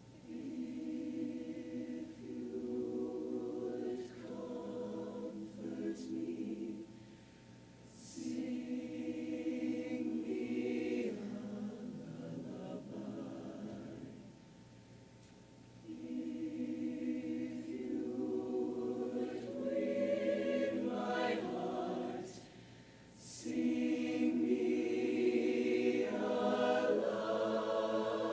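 Show choir singing sustained chords in full harmony, in phrases a few seconds long with short breaks between them.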